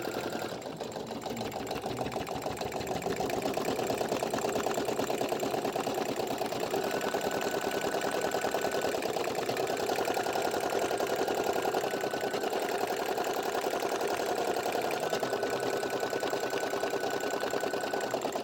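Brother PE800 embroidery machine stitching a dense fill, a fast, steady rattle of needle strokes. A faint high whine comes and goes over it.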